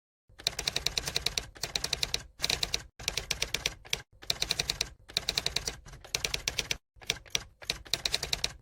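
Rapid, even clicking like typewriter keys, about ten clicks a second. It comes in runs of about a second, each cut off by a short dead-silent gap.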